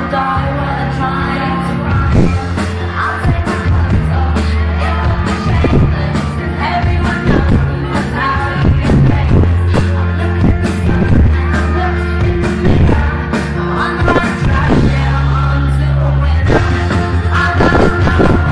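Live pop band playing loudly with a woman singing lead into a microphone over a heavy bass line and a steady drum beat.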